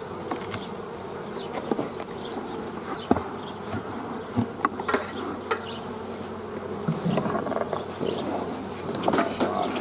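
Honeybee colony buzzing steadily at close range around the hive, with scattered light clicks and knocks.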